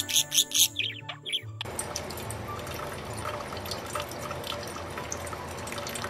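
Water running from a tap into a kitchen sink, a steady splashing hiss with small drips, starting suddenly about a second and a half in. Before it, plucked-string music with a budgerigar's short chirps.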